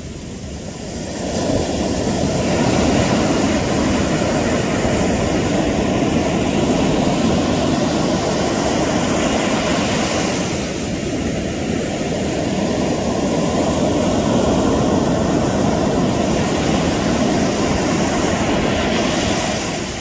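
Ocean surf breaking and washing up a sandy beach, a loud steady rush that swells about a second in, eases a little around the middle, builds again and falls away near the end.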